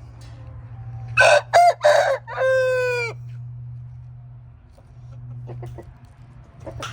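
A rooster crowing once: a few short, broken notes and then one long drawn-out note that dips at the end. A steady low hum runs underneath.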